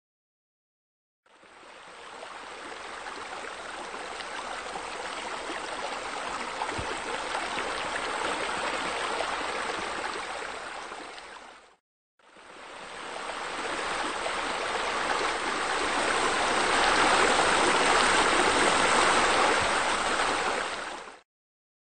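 Steady rush of running water, laid in as a sound effect, in two stretches that each fade in and out with a short break near the middle; the second stretch is louder.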